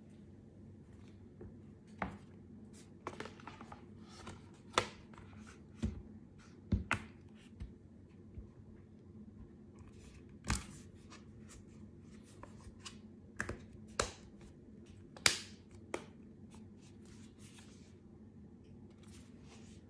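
Handling of a 13-inch iPad Air being fitted into an ESR Rebound Hybrid Case 360, a clear hard back with a rubbery black bumper: about a dozen irregular clicks and taps as the tablet is set down and pressed into the frame, the loudest about three-quarters of the way through.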